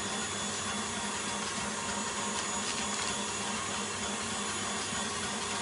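Steady, unchanging motor hum of running kitchen equipment.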